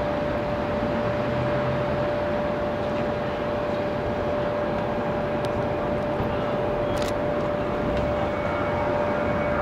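Distant Airbus A330-200 jet engines at taxi power: a steady rush of noise with one steady tone running through it.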